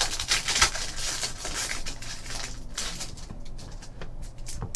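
Foil trading-card pack wrappers being slit open and handled: a run of crinkling rustles and small clicks, busiest in the first couple of seconds.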